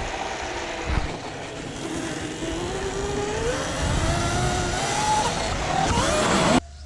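Sur-Ron Light Bee X electric dirt bike's motor, on a 30 kW tune, whining under throttle, its pitch climbing and dropping, over wind and knobby-tyre noise. Near the end it cuts off suddenly, leaving a quieter steady whine.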